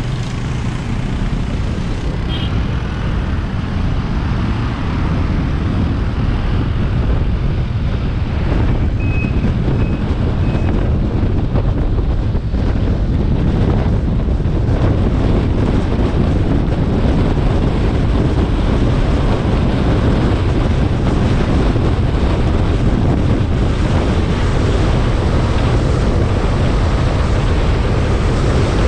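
Road and wind noise from a moving car: a steady low rumble with wind buffeting the microphone, growing slightly louder as it goes. Three short high beeps sound about nine seconds in.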